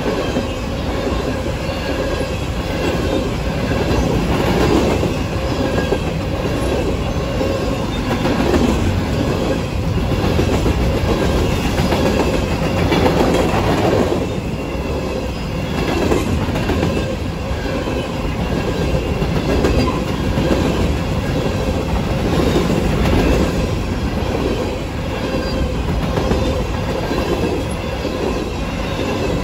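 Freight train cars rolling past at speed, wheels clacking in a steady rhythm over the rail joints under a continuous rumble, with a steady ringing tone from the wheels on the rails.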